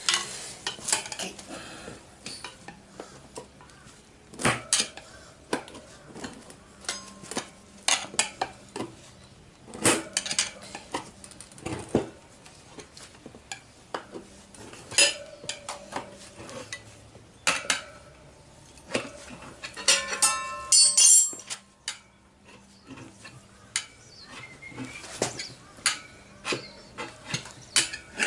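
Steel tyre levers clinking and scraping against a spoked chrome motorcycle wheel rim while the front tyre's bead is levered over the rim by hand. Irregular metallic knocks, some ringing briefly, with a quick run of rattling clinks about twenty seconds in.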